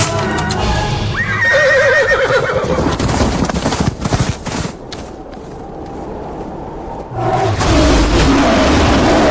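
A horse whinnying, a quavering call about a second in, followed by a run of knocks and clatter. From about seven seconds in there is a loud rushing noise with wavering tones in it.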